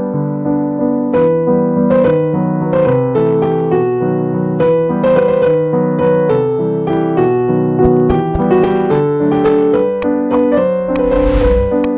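Background piano music: a steady run of struck notes over held chords. Near the end a brief burst of noise cuts in over it.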